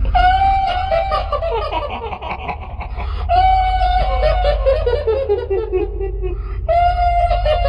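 Shrill kuntilanak ghost laugh, 'hihihi': three runs, each starting on a held high note, then breaking into quick 'hi-hi-hi' pulses that slide down in pitch, over a steady low droning hum.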